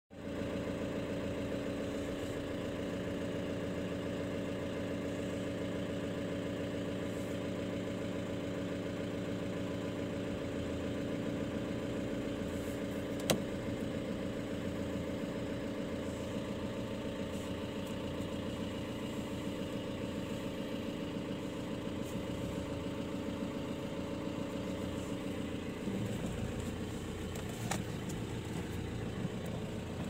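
A vehicle's engine idling steadily, heard from inside the cabin. There is a single sharp click about 13 seconds in, and the engine note shifts about 26 seconds in.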